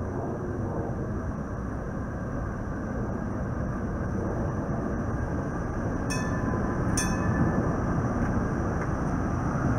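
Vintage PCC streetcar rolling along its rails toward the listener: a steady rumble that grows louder as it nears, with two sharp metallic clicks about six and seven seconds in.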